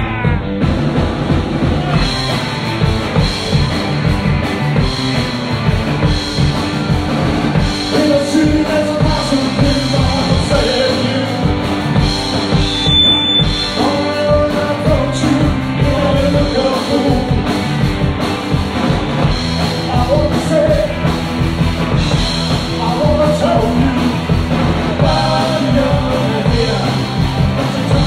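Live rock band playing loud and fast: electric guitars, bass guitar and drum kit, with a lead singer coming in partway through.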